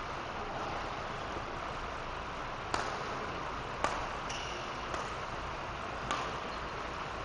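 Badminton racket striking the shuttlecock four times about a second apart in a rally, over a steady background hiss. A brief high squeak comes after the second hit.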